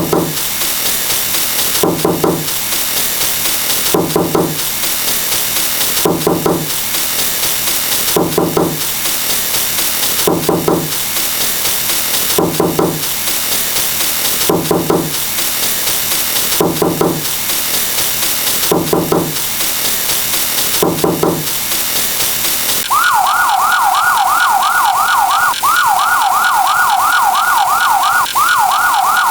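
A police siren sound effect in a fast yelp wail, each rising sweep repeating several times a second, comes in sharply about three quarters of the way in and is the loudest thing. Before it, a short pitched knock-like sound repeats about every two seconds over a steady hiss.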